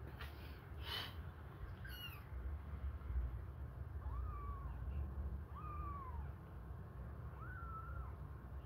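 Young kittens mewing: four short, high cries spaced about a second and a half apart, the first one higher than the rest. They are the hunger cries of very young kittens being bottle-fed.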